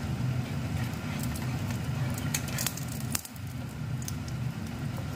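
Egg-soaked bread frying in shallow oil in a pan: scattered crackles and pops over a steady low hum, with one sharper click about three seconds in.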